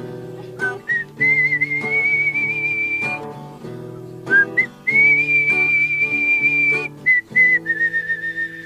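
A person whistling a melody in long held notes with a slight waver, over a strummed acoustic guitar.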